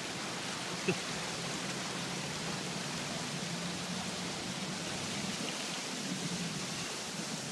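Steady rushing of water, with a faint low hum beneath it and one short knock about a second in.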